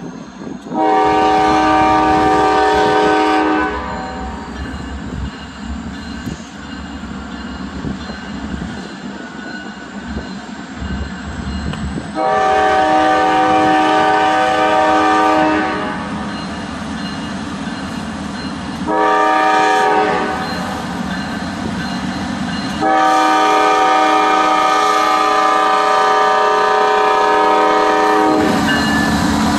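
Norfolk Southern GE Dash 9-40CW diesel locomotive's multi-chime air horn sounding the grade-crossing signal as the train approaches the crossing: long, long, short, long, the last blast held longest. Between blasts the diesel engines and the rolling train rumble steadily.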